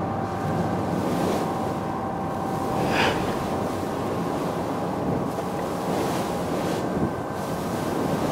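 Cabin noise aboard a Venetian water bus (vaporetto) under way: a steady engine drone with a thin, steady hum over it, and a rush of water and wind. A brief hiss about three seconds in.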